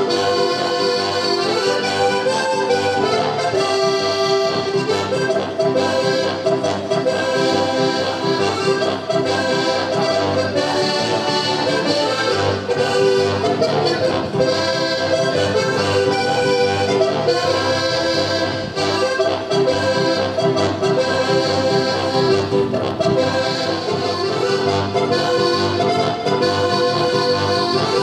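Accordion playing traditional Alpine folk music, with a steady beat in the bass.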